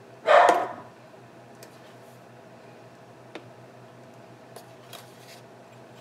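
Ground coffee poured from a metal can into a coffee maker's filter basket: one short rushing pour about half a second in, then a few light clicks.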